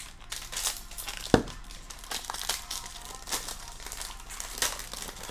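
Foil wrapper of a Topps baseball card hobby pack crinkling and tearing as it is pulled open by hand, with one dull thump about a second and a half in.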